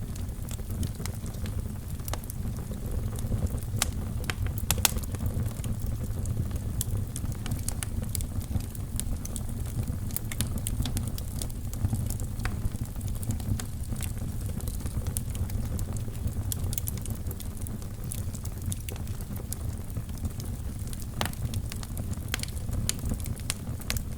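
Wood fire burning in a fireplace: a steady low rumble of flames with irregular sharp crackles and pops, a few louder pops scattered through.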